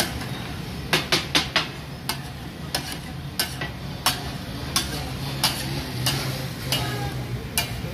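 Metal spatulas striking and scraping on a large flat iron griddle (tawa) as mashed brain masala sizzles: the clatter that gives taka tak its name. A quick run of four sharp metallic strikes about a second in, then about one strike every two-thirds of a second.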